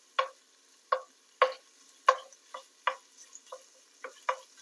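Wooden spatula scraping and knocking against a skillet in quick, uneven strokes, about two a second, as it breaks up Italian sausage browning in the pan. A faint sizzle of the frying meat runs underneath.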